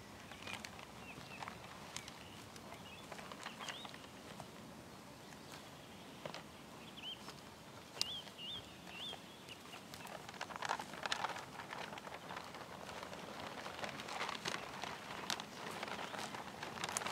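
Small birds chirping now and then, over rustling and crackling from a large rolled paper print being unrolled and pressed against a tree trunk and from steps on dry brush; the rustling and crackling grow busier in the second half.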